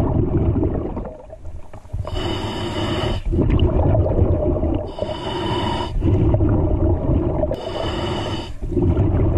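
Scuba diver breathing through a regulator underwater, about every three seconds: three inhalations, each a hiss with a thin whistling tone, alternate with the low rumbling gurgle of exhaled bubbles.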